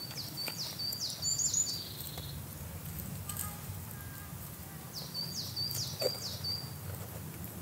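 A songbird singing two short phrases of quick, high, downward-sweeping notes, the second phrase about three seconds after the first, over a steady low background hum.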